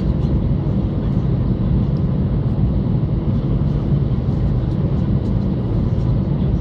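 Steady cabin rumble inside an Airbus A320 rolling slowly on the ground, its CFM56-5A1 engines running at low thrust, with a few faint light clicks.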